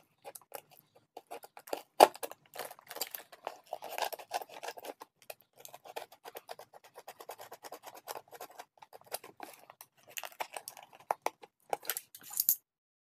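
Snap-off utility knife cutting through a cardboard box: an irregular run of small scratchy clicks and scraping strokes as the blade saws along the line, with a louder burst of scratching near the end.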